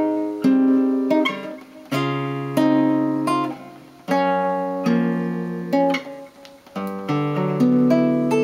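Nylon-string classical guitar played fingerstyle: the closing chords of a solo chord-melody arrangement, a string of plucked chords each left to ring, the last one held and fading out near the end.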